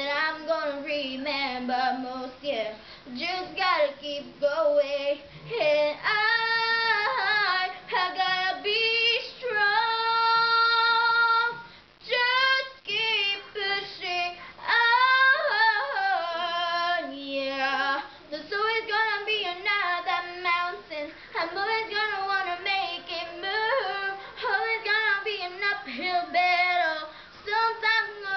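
A young girl singing a pop ballad solo, with a long held note about ten seconds in.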